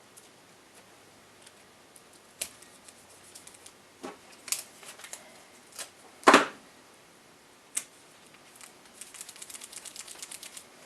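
Adhesive tape being pulled off and laid over a laptop's screen-cable connector: scattered small clicks and taps, one short loud rip about six seconds in, and a quick run of fine crackling ticks near the end.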